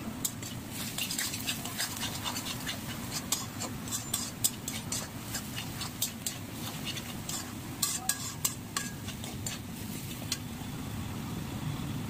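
Metal spatula scraping and clinking against an aluminium kadai while stirring onions and ground spices, in irregular sharp clicks and scrapes that die away near the end. A steady low rumble runs underneath.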